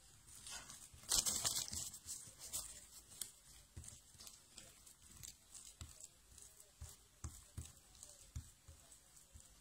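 A spoon scraping and tapping as chopped nettle filling is scooped and spread over a sheet of pastry dough: light, irregular clicks and taps, with a louder rustling crackle about a second in.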